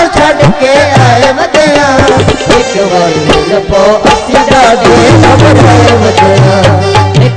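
Tabla playing a fast pattern under a wavering melody line in Punjabi folk music. Deep bass strokes come in strongly about five seconds in.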